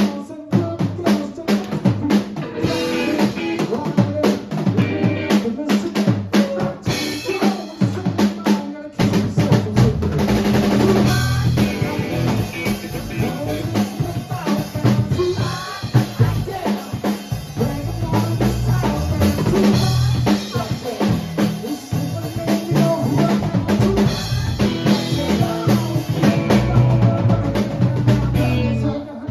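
Live rock band playing without vocals: a drum kit keeps a steady beat with snare and bass drum under the rest of the band. The sound gets fuller and heavier about nine seconds in.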